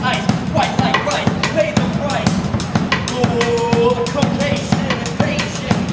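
Live music: a drum kit plays a busy beat of quick snare, bass-drum and cymbal hits, with a pitched melody line over it that holds one note for about a second midway.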